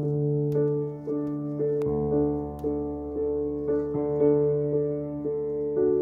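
Background piano music: notes struck about twice a second over a held low note.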